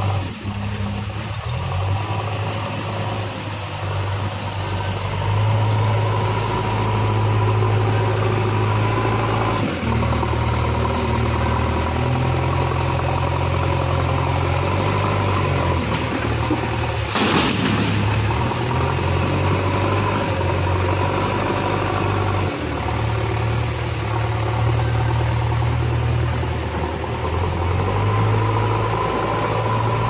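JCB 3DX backhoe loader's diesel engine running under working load, its speed stepping up and down several times as the loader is worked. There is a brief rush of noise about seventeen seconds in.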